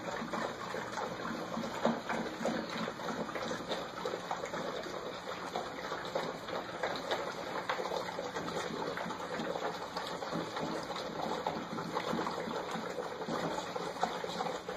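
A litter of puppies eating together from one shared bowl, lapping and slurping: a steady, dense run of small wet licking clicks.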